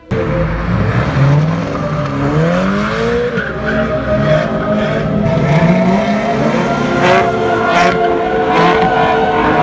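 Several sports car engines revving and accelerating hard, their pitch rising through the gears. A few sharp cracks ring out near the end.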